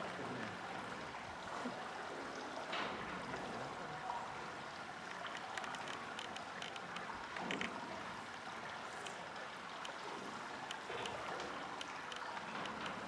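Steady rush of running water, with a few faint clicks.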